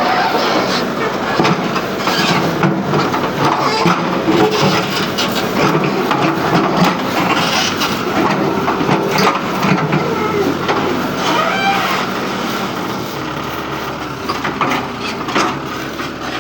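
Heavy earthmoving machinery working: a diesel engine running steadily under load, with repeated metallic clanks and rattles over it.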